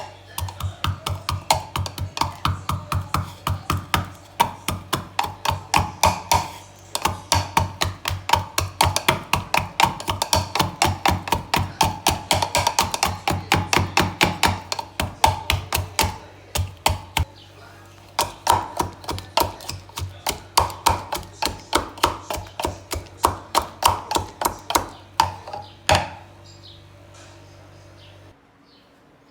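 Knife chopping rapidly on a cutting board, about three to four strokes a second in long runs with a few short pauses.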